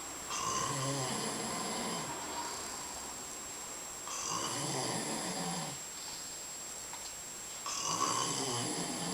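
A person snoring heavily: three long snores, each lasting nearly two seconds, coming about every four seconds with quieter breathing gaps between.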